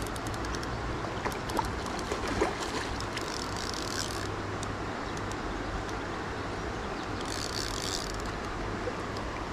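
Shallow, stony small river flowing, a steady rush of water. Light splashes of water at the bank come briefly about three to four seconds in and again near the end.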